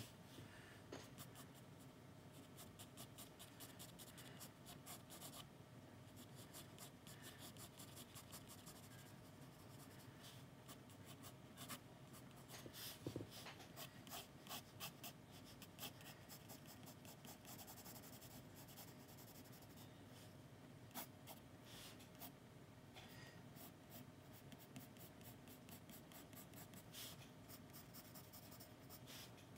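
Graphite pencil sketching on sketchbook paper: faint, quick scratchy strokes, many in a row with short pauses between them.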